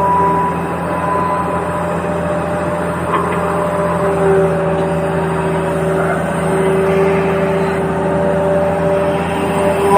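Small electric motors of radio-controlled toy construction vehicles running with a steady whine made of several pitches, one of the higher pitches dropping out about half a second in.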